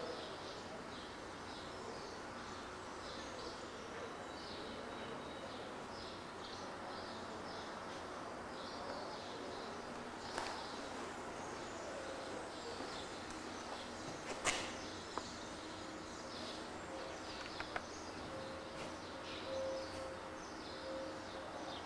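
Faint chirping of small birds, short high calls repeating irregularly over a steady hiss. Two sharp clicks stand out midway.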